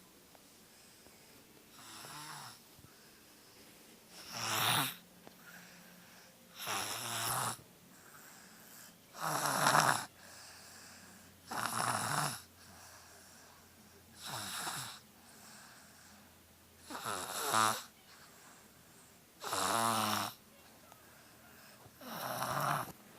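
Heavy, regular snoring, nine snores about two and a half seconds apart, some with a buzzing rattle. The sleeper is congested with a cold, which the speaker gives as the reason for the snoring.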